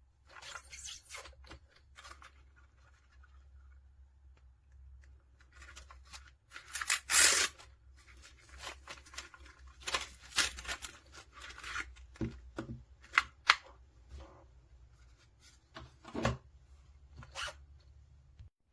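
Irregular rustling, crinkling and tearing noises, like packaging or material being handled, with the loudest burst about seven seconds in.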